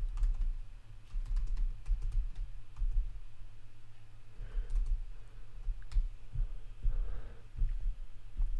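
Typing on a computer keyboard: irregular runs of keystrokes, each click carrying a dull low thump.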